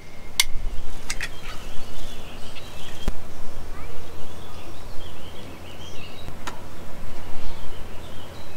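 Birds chirping in the background through most of the stretch, with a few sharp clicks near the start and single knocks about three and six and a half seconds in, over a steady low rumble.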